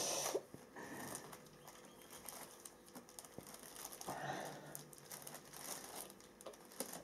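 Thin plastic bag crinkling and rustling in short, irregular bursts as it is twisted and folded around a bundle of frozen spinach cubes. The bursts are loudest right at the start and again about four seconds in.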